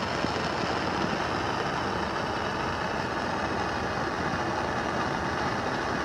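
Handheld propane torch burning steadily, an even rushing hiss of its blue flame.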